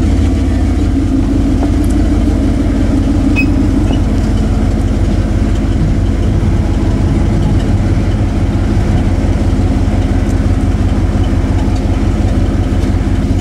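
Ford F-150 pickup's engine idling: a steady low hum heard from inside the cab.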